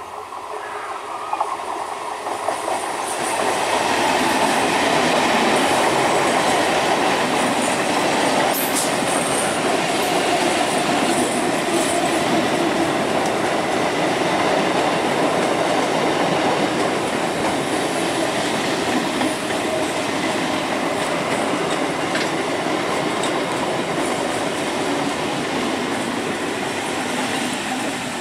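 Electric multiple unit local train passing close by at speed: wheels running on the rails, growing louder over the first four seconds as the train draws level, then a steady loud rush of wheel-and-rail noise as the coaches go by. It eases slightly near the end as the last coach passes.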